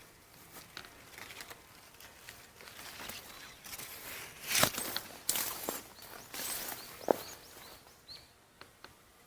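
Irregular rustling and crackling with scattered clicks, loudest in the middle, and a few faint high chirps near the end.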